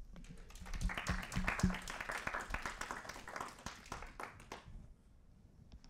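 A small audience applauding. The clapping builds about half a second in and dies away near the end.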